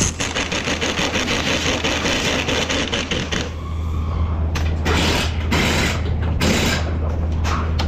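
Tool work at a strut spring compressor: a pneumatic impact wrench stops at the start, then rapid ratchet-like clicking runs for about three seconds, followed by several short bursts of noise. A steady low hum lies underneath.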